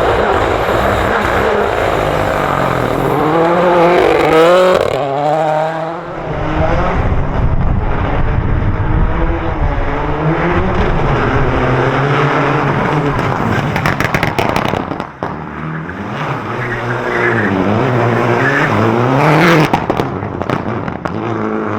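Rally car engines at high revs, rising and falling as the cars change gear and brake through a stage, with the sound changing abruptly about six seconds in and again near the middle as one car gives way to another.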